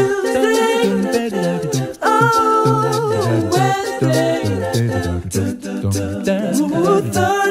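Music: a song sung by several layered voices, with a steady beat and low bass notes underneath.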